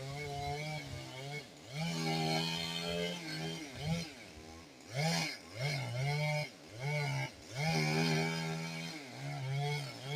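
Two-stroke chainsaw running, its throttle opened and released again and again, so the engine note holds for a second or two and then swoops down and back up.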